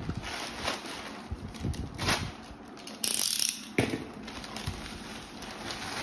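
A plastic courier bag being slit with a box cutter and rustled open. Irregular crinkling, a brief hiss about three seconds in, and a sharp knock just after.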